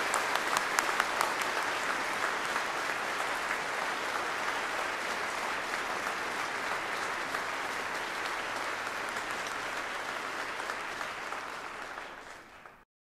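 Large audience applauding: dense, steady clapping that fades a little, then cuts off abruptly near the end.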